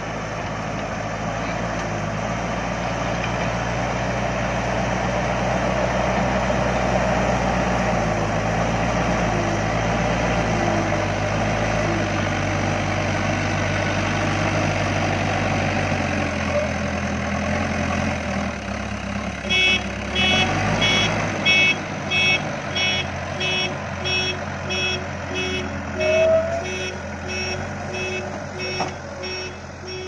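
Tata Hitachi TH86 backhoe loader's diesel engine running hard as the front bucket pushes and lifts gravel. About twenty seconds in, its reversing alarm starts beeping steadily, about one and a half beeps a second, over the engine as the machine backs up.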